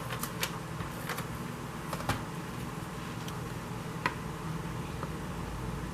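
Scattered light clicks and taps as adhesive is put on the back of small paper card pieces, over a steady low hum.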